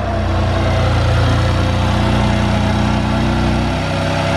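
BMW M4's S55 twin-turbo straight-six idling steadily moments after its first start following an oil change, its note easing slightly near the end.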